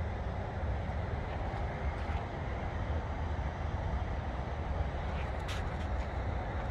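Steady outdoor background noise: a low rumble with a hiss above it, and a few faint ticks a little past the middle.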